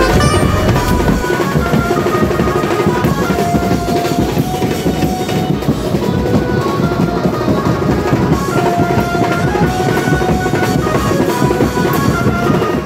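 Loud music with drums and a melody instrument playing short held notes over a dense, steady beat.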